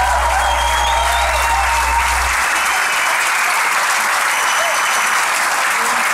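A large theatre audience applauding steadily. A low steady tone from the music or sound system cuts off about two seconds in.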